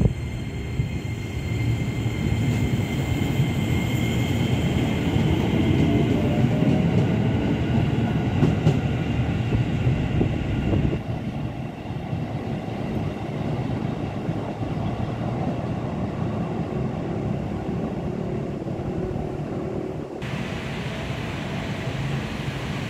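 KRL Commuter Line electric train running along the station track: a steady rumble of wheels on rails with a high whine over it in the first part. After a change about 11 s in, a quieter train rumble goes on.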